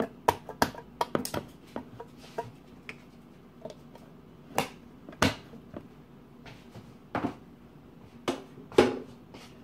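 About ten sharp, irregular clicks and taps from a metal spoon knocking against a metal can of cornstarch while a spoonful is measured out.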